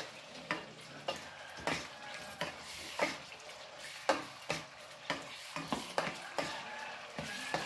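Pork pieces sizzling in soy sauce in a nonstick pot while a plastic spatula stirs and turns them, with irregular clicks and scrapes of the spatula against the pot.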